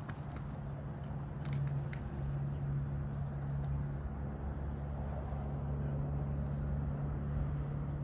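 A motor running steadily, an even low hum that holds one pitch, with a few faint ticks in the first two seconds.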